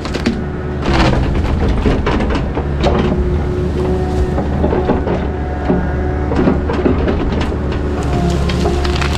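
Takeuchi TB070 compact excavator's diesel engine running steadily under load with a steady whine from the hydraulics, while the bucket pushes into trees, with scattered sharp cracks and knocks of wood splitting and branches snapping.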